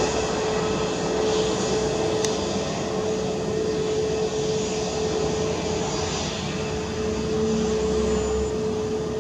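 Airbus A320neo's CFM LEAP-1A turbofan engines running at low thrust as the jet taxis along the runway: a steady rushing noise with a constant whine.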